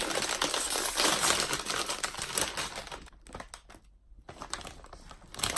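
A plastic Lay's chip bag being handled and crinkled: a dense run of crackling for about three seconds, then thinner bursts of crinkles.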